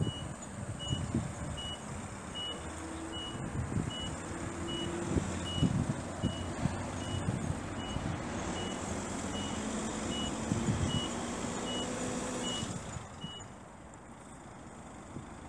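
A vehicle's reversing alarm beeps evenly about once every 0.8 seconds over the hum of a running engine. The beeping stops about 13 seconds in, and the engine noise falls away with it.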